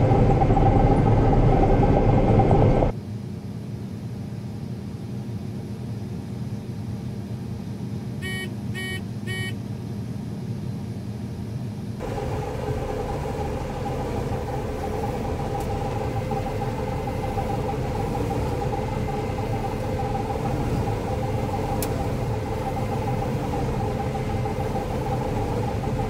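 John Deere 9500 combine running steadily at harvest, a diesel engine drone with machinery whir. The level drops suddenly about three seconds in and steps back up around twelve seconds in, and a few short electronic beeps sound around eight to ten seconds in.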